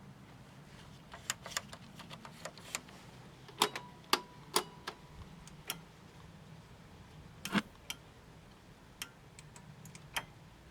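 Irregular sharp clicks and knocks, about a dozen, over a faint steady hum, as the 1980 Sony Trinitron KV1913 portable TV is switched on again and again and shuts itself off each time, typical of a protection circuit cutting the power.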